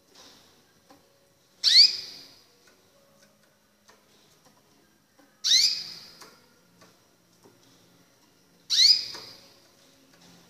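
White recessive canary calling three times, a few seconds apart, each call a short, loud, rising chirp that fades quickly. Faint clicks sound in between.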